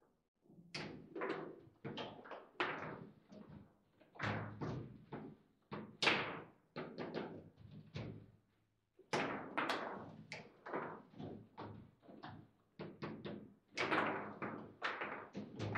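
Foosball rally: fast, irregular clacks and knocks of the ball struck by the plastic players and hitting the table walls, with the rods sliding and banging. There is a brief lull about eight and a half seconds in.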